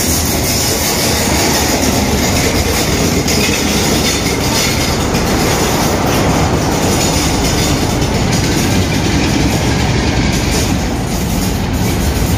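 Diesel-hauled passenger train rolling slowly past close by along a platform: the locomotive goes by, then its coaches, with a steady heavy rumble of engine and wheels on the rails.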